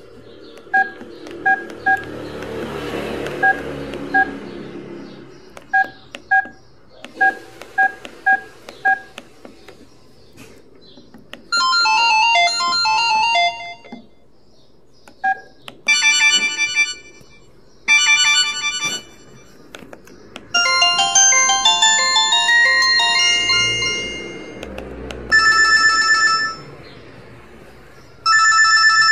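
LG KF240 mobile phone: a string of short key-press beeps, then a series of polyphonic ringtone previews, each a melody of one to three seconds that stops abruptly before the next begins.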